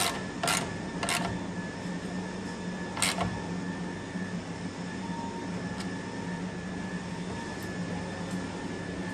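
Plastic headlight unit being pushed and knocked into its mounting on the car's front panel: four short scraping clicks in the first three seconds, over a steady low hum.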